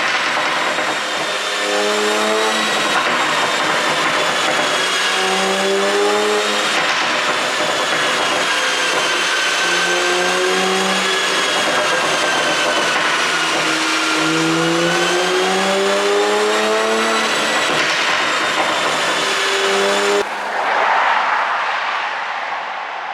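Turbocharged 3.0-litre inline-six of a 2020 BMW X5 xDrive40i with an ECU pop-sound tune, pulling through the gears: the engine note climbs in pitch and drops back at each shift, over a high wavering whine. Near the end the engine note cuts off and a short rush of noise follows.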